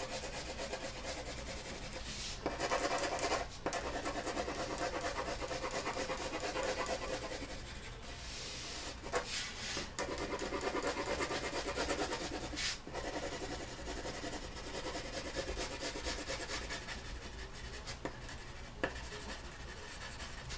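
Pencil shading on paper: quick back-and-forth scratchy strokes, coming in spells of a second or more with brief breaks between them.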